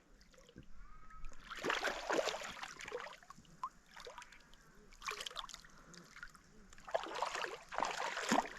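Water splashing and sloshing in irregular bursts as a large catfish is let go over the side of a boat back into the river.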